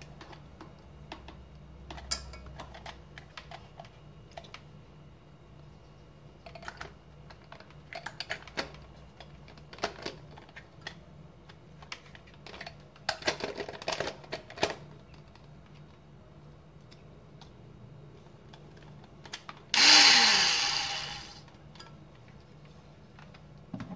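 Plastic parts of an MR DIY hand blender and its chopper attachment clicking and knocking as they are handled and fitted together. Near the end the blender motor runs briefly for about a second and a half, then winds down with a falling whine.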